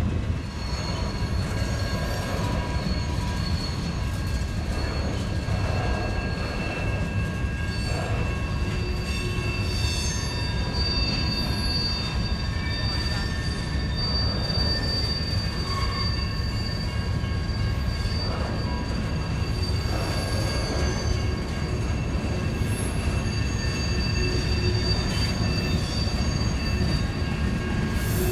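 Freight train rolling past with a steady rumble, its wheels squealing on the rails in several high steady tones.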